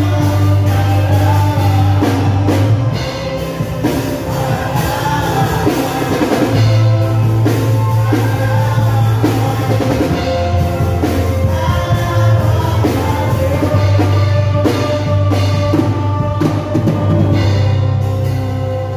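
Live worship band playing through a PA: electric keyboard, electric guitar and bass guitar with drums and singing. Deep bass notes are held for a few seconds at a time under a moving melody and a steady beat.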